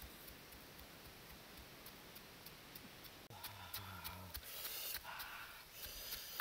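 Faint scattered ticks, then a little past three seconds in a wooden pestle pounding and crushing fresh red chilies in a stone mortar: several wet, crunching strokes.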